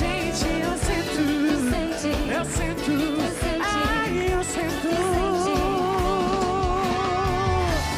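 Pop song with a steady beat and a lead vocal, performed live with a band. About five seconds in, the singer holds one long note with vibrato, letting it go just before the end.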